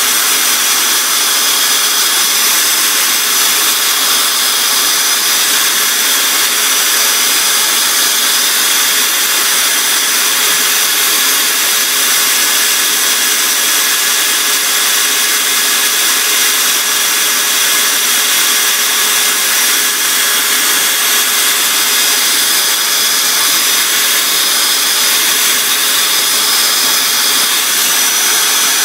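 Small electric motor running at a steady speed, a constant whine over a hiss, spinning a cork fishing float on a chopstick while sandpaper is held against the cork.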